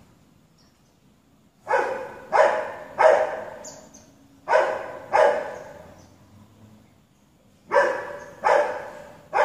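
Dog barking in short volleys, eight loud barks in all: three in quick succession, a pause, two more, another pause, then three more. Each bark has a short echoing tail.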